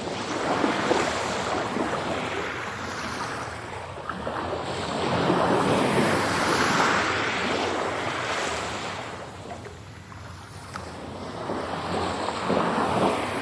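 Ocean surf: a rushing wash of waves that swells and recedes several times, then cuts off abruptly.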